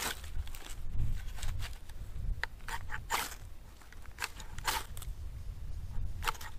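A knife shaving thin curls off a split stick of dry wood: short rasping strokes at an uneven pace, roughly two a second.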